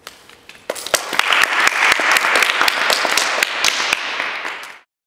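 Audience applauding, many hands clapping at once. A few scattered claps come first, then the applause fills in about a second in, and it cuts off abruptly near the end.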